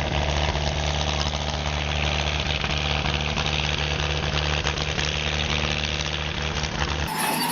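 A large engine running steadily with a deep, even hum, typical of heavy machinery. Near the end the low engine sound stops abruptly and a thinner, different machine sound takes over.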